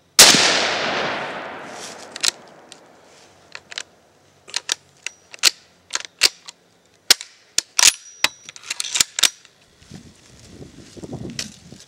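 A single shot from a Mosin-Nagant 91/38 carbine in 7.62x54R, dying away over about two seconds. It is followed by a long run of metallic clicks and knocks as the bolt is worked on a spent case that will not extract properly, a fault the shooter blames on the surplus ammunition.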